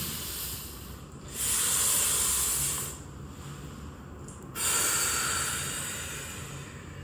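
Two long, breathy exhalations during a chiropractic adjustment, the first about a second and a half long, the second longer and trailing off slowly.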